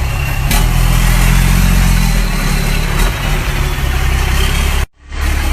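Diesel engine of a Munk truck-mounted crane running steadily, driving the crane's hydraulics while a section is lifted. There is a short click about half a second in, and the sound cuts out briefly near the end.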